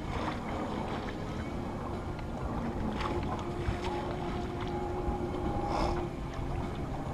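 Wind buffeting the microphone and water washing along the hull of a small sailboat under way in light air, with a few light knocks and a faint drawn-out tone in the middle.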